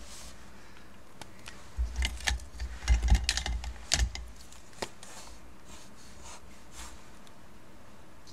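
Clicking and clattering of capped gel crayon sticks being put into and picked out of a cup of art supplies, with a few soft knocks on the table, mostly between about two and five seconds in.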